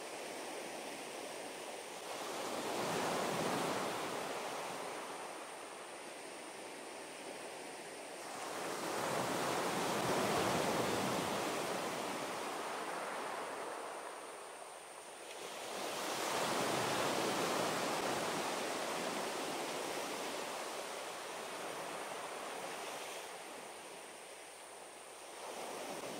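Sea waves breaking and washing up a beach: three waves, each swelling up into a rushing hiss and then ebbing away, about seven seconds apart.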